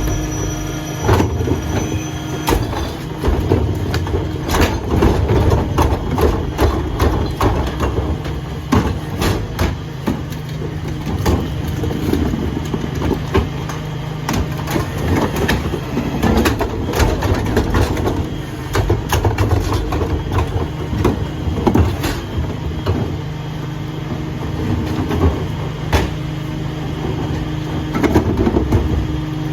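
Rear-loader garbage truck running, with a steady engine hum under many irregular clanks and knocks.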